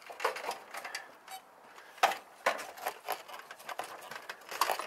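Irregular knocks, clicks and rustling from tools and tarp being handled, with the sharpest knock about two seconds in.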